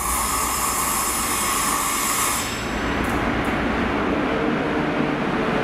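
DB Class 60 diesel freight locomotive approaching, its engine running with a low rumble that grows steadier and more tonal near the end. For about the first two seconds a steady high-pitched sound with hiss runs over it, then cuts off suddenly.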